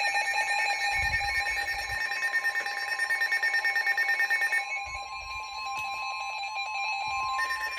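Several NOAA weather alert radios sounding their alarms together: layered, rapidly pulsing electronic beeps at a few different pitches. About five seconds in, a steady single tone joins them, the weather-radio warning alarm tone that comes before a new warning is read.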